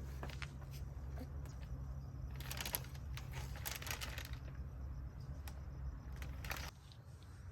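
A few short bursts of rustling or crinkling, over a low steady hum that stops near the end.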